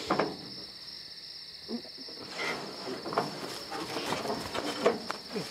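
Crickets trilling steadily in the night, a continuous high chirring, with scattered sharp knocks over it, the loudest just after the start and near the end.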